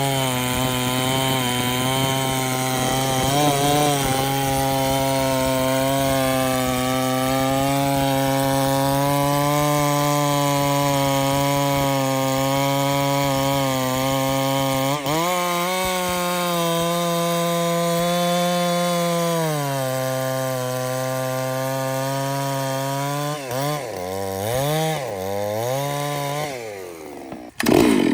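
Two-stroke chainsaw working through a log at high revs. Its pitch steps up about halfway through, holds for a few seconds, then settles back as it bogs under load. Near the end it is revved up and down several times before dropping away.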